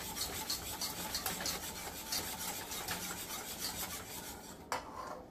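Wire whisk stirring and scraping around a stainless steel saucepan of beef stock in quick, regular rasping strokes. It ends with a short knock near the end.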